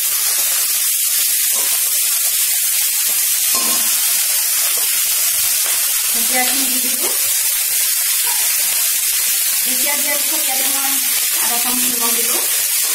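Hot oil sizzling loudly in a kadai as fiddlehead fern greens (dhekia) are tipped into fried onion, garlic and chilli and stirred. The hiss starts suddenly as the greens hit the oil and stays steady.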